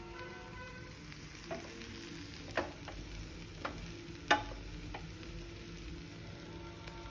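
A serving utensil clinking and scraping against a thali plate about five times, the loudest clink about four seconds in with a brief ring, over soft background music.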